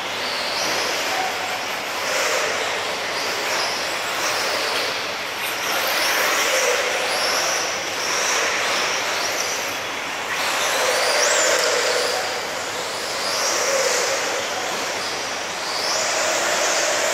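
Tekno EB48 1/8-scale electric off-road RC buggies running on a dirt track: a continuous rushing noise of tyres and drivetrain, with high motor and gear whine that swells and fades every couple of seconds as the cars accelerate and pass.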